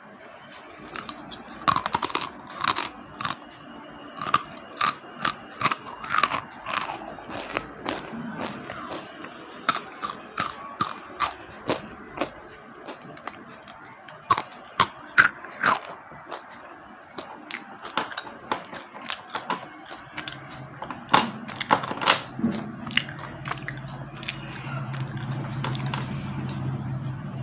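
Slate pencils being bitten and chewed: a run of sharp, dry crunches at an irregular pace, several a second with short pauses between bites. A low steady hum comes in during the last few seconds.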